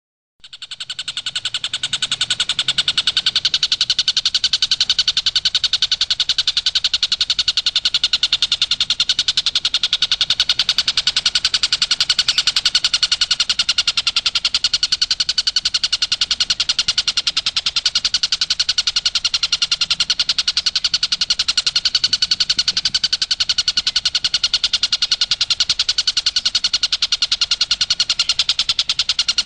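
Stork-billed kingfisher (tengkek buto) giving its rapid-fire 'tembakan' call: a loud, continuous fast rattle of high notes that starts abruptly about half a second in and keeps up an even pace.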